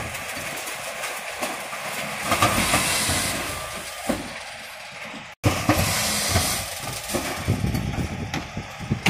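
Mercedes-Benz Econic refuse truck with a Faun Variopress compactor body running at the kerb, with hissing and knocking from its bin lifter and body. The sound cuts out for an instant about halfway through.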